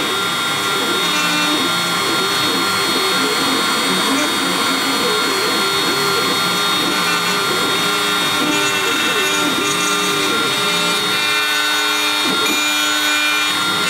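Shapeoko CNC router milling wood with a small end mill. The spindle gives a steady high whine over the cutting noise, while the stepper motors' lower tones glide up and down as the bit follows the wave contours.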